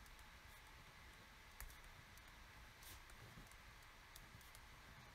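Near silence with faint pen-on-paper writing sounds: light scratches and a few soft clicks of a pen nib on graph paper.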